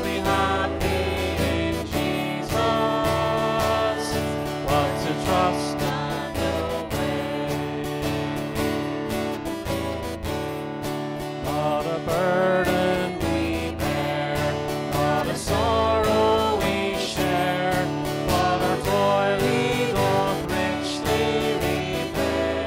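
Voices singing a hymn to a strummed acoustic guitar, the strumming steady under the sung lines.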